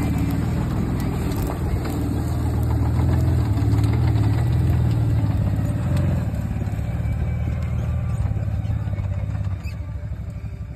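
Can-Am Maverick side-by-side's engine running as it drives through brush down a dirt gully, fading near the end as it moves away.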